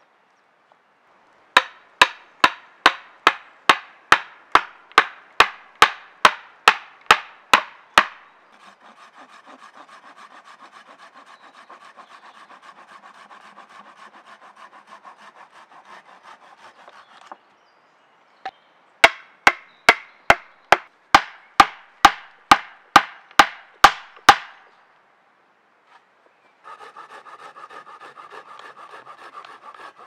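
A tool striking wood in two runs of quick, even knocks, about two to three a second, each run followed by a steady rasping scrape of a tool working the wood.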